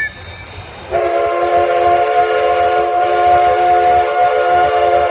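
Steam locomotive whistle sounding a long, loud chord of several notes at once, starting about a second in and held steady. A low rumble runs underneath.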